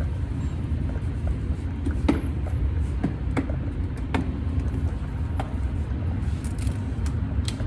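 Steady low rumble with a handful of sharp knocks at uneven intervals, the loudest about two seconds in.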